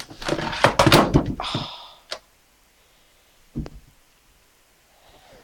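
A clock knocked to the floor by kittens: a loud clatter of knocks and thumps for about two seconds, then a single thud about three and a half seconds in.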